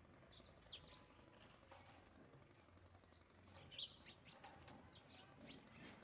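House sparrows chirping faintly: a short chirp about a second in, the loudest near the middle, then a scatter of quick chirps.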